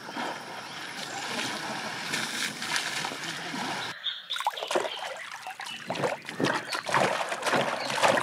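Water splashing and sloshing, changing abruptly about four seconds in to a run of separate, irregular splashes.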